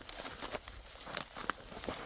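Dry wheat stalks crackling and snapping in irregular sharp clicks during hand harvesting.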